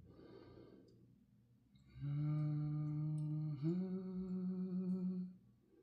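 A man's voice humming a held note for about three seconds, stepping up to a higher note about halfway through, with a few faint clicks.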